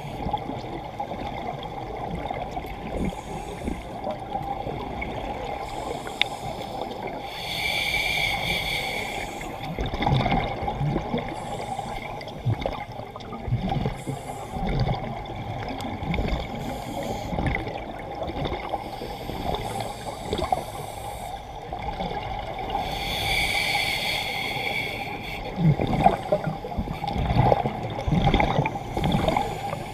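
Scuba breathing heard underwater, muffled by the camera housing: a hissing regulator inhalation twice, about fifteen seconds apart, each followed by a gurgling rush of exhaled bubbles, over a constant dull water rumble.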